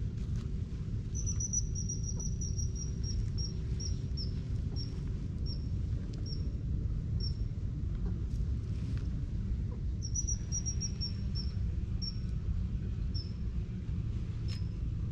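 A bird calling twice, each time a run of short high notes that starts quick and slows down, over a steady low rumble.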